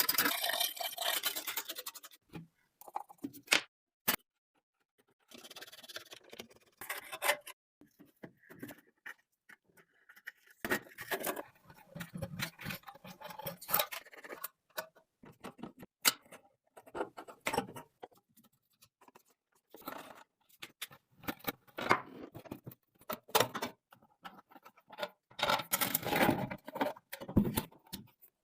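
Hand work on a rusty antique metal lamp: intermittent scraping and scratching with sharp metallic clicks and knocks as parts are handled and cleaned, in short bursts separated by abrupt silent gaps.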